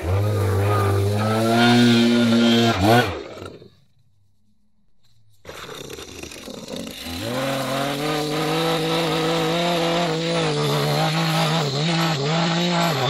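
A small gas engine runs steadily and revs up briefly, then breaks off about three and a half seconds in. About two seconds later a Maruyama stick edger's engine starts low and rises to full throttle near seven seconds in, running steadily with small dips in pitch as its blade cuts along the lawn edge and throws dirt.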